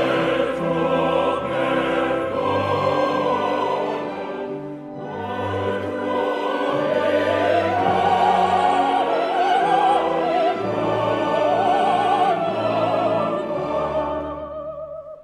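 Opera performance: a mezzo-soprano sings with wide vibrato over chorus and orchestra. She holds strong high notes from about eight seconds in, and the music fades out at the end.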